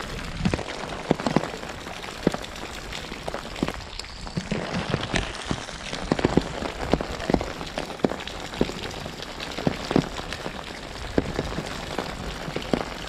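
Heavy downpour: a steady hiss of rain with many sharp, irregular drop hits close by.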